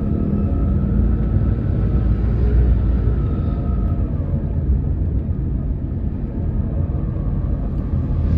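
Car engine and road noise heard from inside the cabin while driving: a steady low rumble, with a faint whine that fades out about four seconds in.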